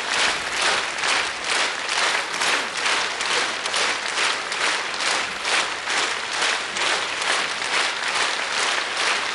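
Studio audience applauding, with a regular beat of roughly two to three claps a second running through it, as many clap in unison. It starts suddenly at full strength.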